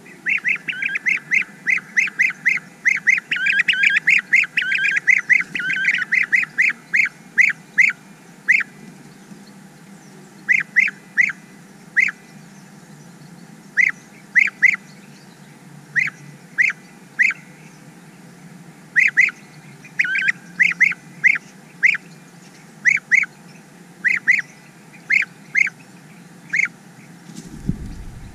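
European bee-eaters calling with short, rolling notes, repeated fast and overlapping for the first eight seconds or so, then coming in twos and threes with pauses between.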